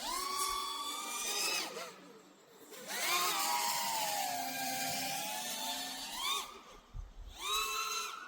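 A 5-inch FPV freestyle quadcopter's brushless motors whining, the pitch swinging up and down with the throttle. There are quick punches up at the start, about three seconds in and near the end, a long slide down between them, and short drops in pitch around two seconds and again just before the last punch.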